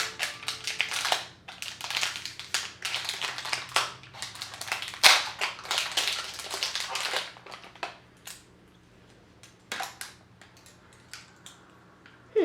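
Plastic craft-kit parts and packaging being handled: crinkling, rustling and clicking, dense for the first seven seconds with one sharp loud click about five seconds in, then only a few scattered clicks.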